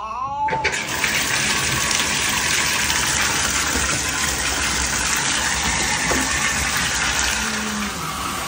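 Water running steadily from a tap into a bathtub, a loud even rush. A child's voice sounds briefly at the very start.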